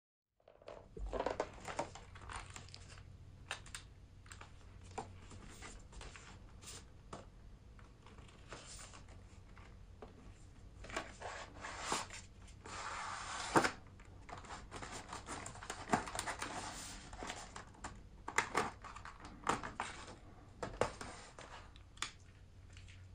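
Hands handling a paperboard box and a clear hard-plastic phone case: scattered taps, clicks and rustles of cardboard and plastic. A longer scraping rustle runs a little past the middle and ends in a sharp click, the loudest sound.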